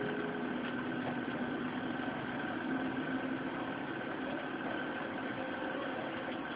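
Small stepper motor on a driver board, running with a steady hum and whine, a few of its lower tones shifting in pitch as the speed-control knob is turned.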